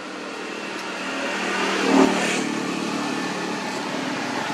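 A motor vehicle engine running close by, growing louder over the first two seconds and then holding steady, with a short thump about two seconds in.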